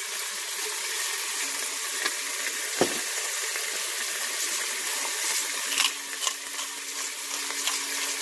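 Beef chuck roast searing in the stainless inner pot of an Instant Pot on sauté: a steady sizzle. A few short clicks from a hand seasoning grinder and one brief knock come through over it.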